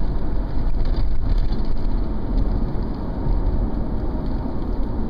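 Steady road noise of a car driving at highway speed, heard from inside the cabin: a constant rumble of tyres on asphalt with wind.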